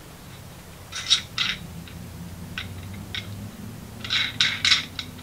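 Handling noise from a wireless microphone receiver being fitted into its cold-shoe mount by hand: a few short clicks about a second in, two more around the middle, then a quick cluster of clicks and scrapes near the end.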